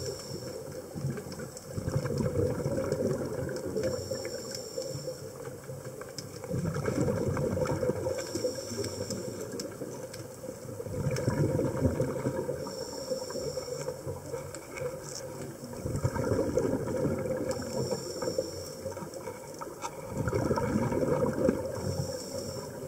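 A scuba diver breathing underwater through a regulator: a short hiss on each inhale, then a swelling gurgle of exhaled bubbles, repeating about every four to five seconds.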